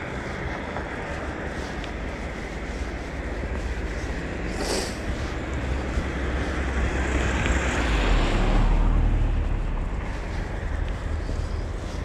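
A car passing along the road, its sound swelling to a peak about nine seconds in and then fading, over steady wind noise on the microphone. A brief sharp hiss about five seconds in.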